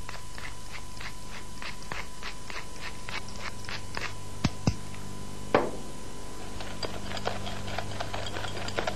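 Wire whisk beating egg yolks and garlic-potato paste for aioli in a glass bowl, clicking against the glass about three times a second. A few louder knocks come around the middle, and the strokes quicken near the end.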